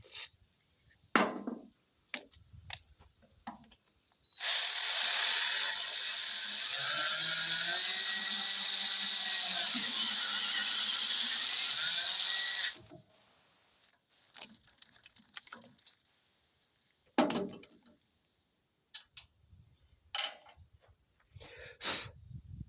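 Power drill running under load in one continuous run of about eight seconds, starting about four seconds in, its motor pitch wavering. Before and after it come a few short clicks and knocks of tools being handled.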